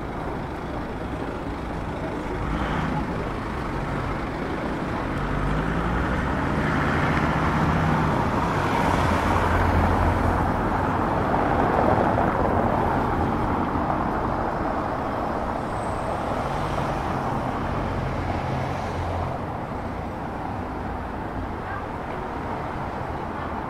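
Road traffic noise, with a motor vehicle's engine and tyres growing louder toward the middle and then fading away as it passes.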